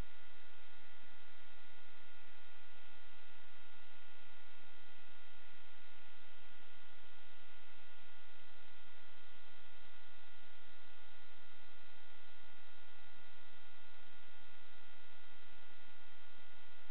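Steady electrical hum and hiss with several constant high tones, unchanging throughout. It is the audio-channel noise of an analog FPV video link recorded by the goggles' DVR; no motor sound rises or falls with the flying.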